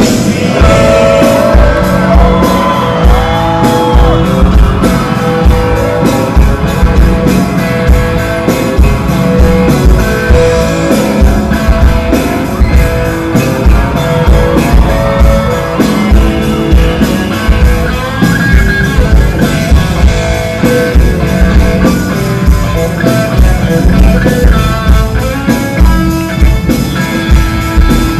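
Rock band playing live: electric guitars over a steady driving drum beat, loud and full throughout.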